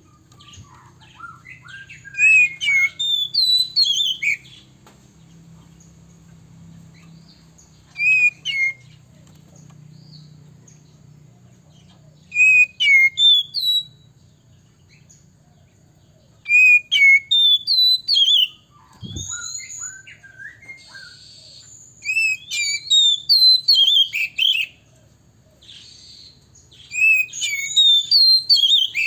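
Male oriental magpie-robin singing. It sings loud phrases of rapid, varied whistled notes, each a second or two long, with short pauses between and soft chirps in the gaps. One dull knock comes about two-thirds of the way through.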